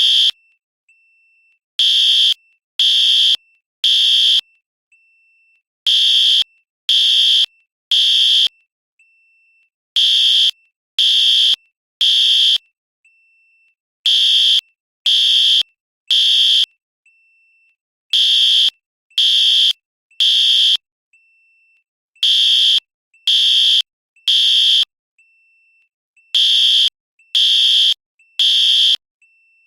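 Fire alarm sounding loud, high-pitched beeps in repeating groups of three with a longer pause after each group. This is the temporal-three (T3) evacuation pattern.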